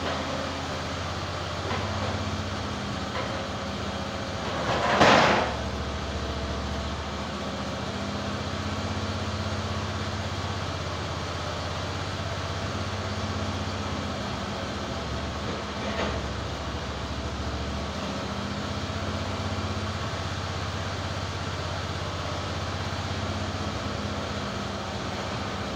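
EZ Boardwalk 40 sawmill's engine running steadily, not cutting. About five seconds in comes a brief, loud rushing noise lasting about a second, and there are a couple of faint knocks.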